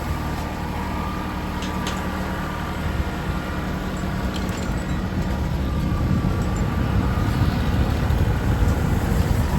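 An engine running steadily at a constant speed, slowly getting louder in the second half, with a few faint clicks.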